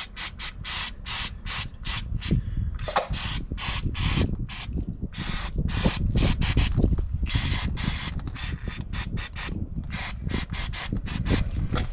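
Wire brush scrubbed hard back and forth over the car's brake parts, a rasping scrape at about three strokes a second, cleaning off rust and grime before the pads are changed.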